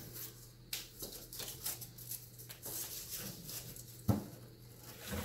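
Faint irregular scraping and clicking of cardboard template pieces being handled and cut with a utility knife, with a sharper knock about four seconds in.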